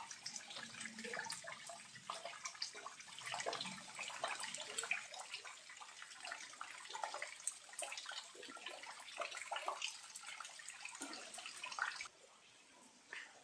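Small low-flow waterfall trickling and splashing, with a steady run of irregular drips and gurgles over a soft hiss of water. About twelve seconds in, the sound drops away suddenly to a faint trickle.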